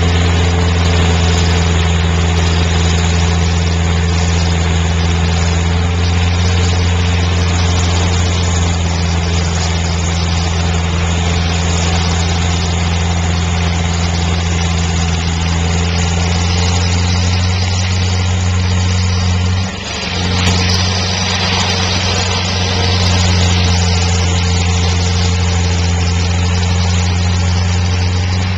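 Vermeer stump grinder's engine running steadily as its cutter wheel grinds down a tree stump, with a brief dip in the engine note about two-thirds of the way through.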